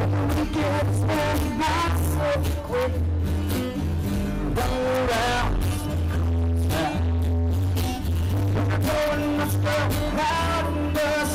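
Live band playing rock music amplified through PA speakers: a man sings and plays acoustic guitar over a strong bass and a steady beat.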